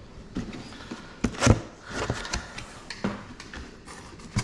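Cardboard box being opened by hand: flaps pulled apart and cardboard rubbing and scraping, with several knocks, the loudest about one and a half seconds in.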